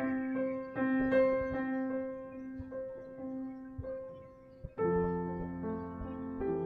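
Background piano music: slow single notes and held chords, with a fuller chord struck about five seconds in.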